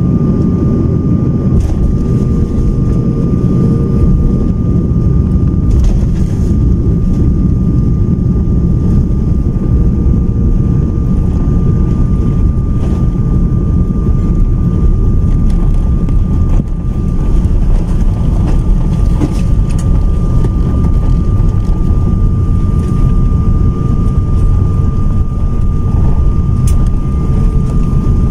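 Jet airliner cabin noise heard from a window seat over the wing while taxiing after landing: a loud, steady low rumble from the engines and the rolling aircraft, with a thin steady whine over it.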